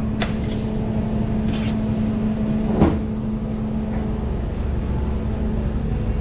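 Steady low mechanical hum and rumble of running kitchen equipment, with a few light knocks, the clearest about three seconds in.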